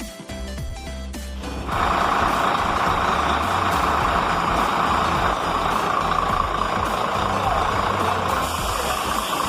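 Background music, then about two seconds in a Mercedes-Benz Actros truck is heard running with a loud, steady rushing noise over a low rumble, on its test run after a steering box rebuild.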